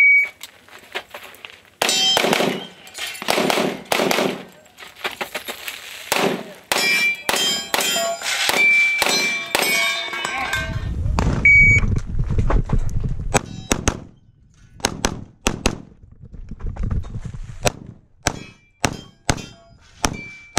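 A shot timer's start beep, then a string of rapid pistol shots, with metal targets clanging and ringing as they are hit. About midway a second beep sounds and another string of shots follows over a low rumble.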